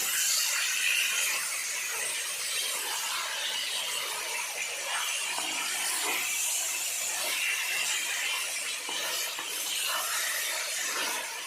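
Marinated chicken pieces and fried onions sizzling steadily in hot oil in a pan over a high gas flame.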